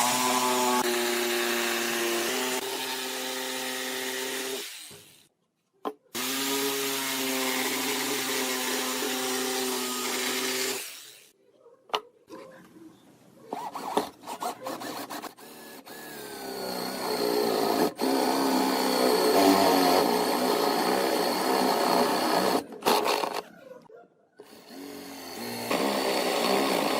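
Electric drill motor running in bursts of about five seconds, with scattered clicks and knocks between them, then a longer, rougher run with the bit working into wood.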